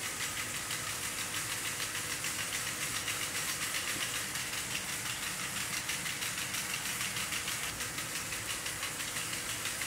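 Small electric motor and plastic gears of a LEGO Technic model whirring steadily, with a fast, even rattle of gear teeth.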